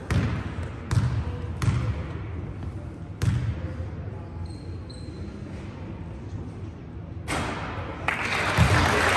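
A basketball bounced four times on a wooden sports-hall floor as a player dribbles before a free throw, then applause breaks out near the end after the shot.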